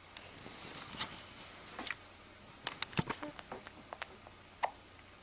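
A sleeping baby sucking on her fist: a few soft breathy sounds first, then a quick, irregular string of small clicks and smacks.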